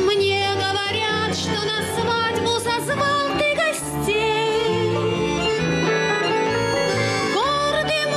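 A woman singing with vibrato, accompanied by a button accordion (bayan) and acoustic guitars.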